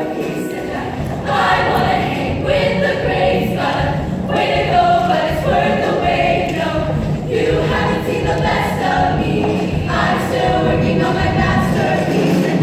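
Large, mostly female show choir singing together in full voice, growing louder about a second in.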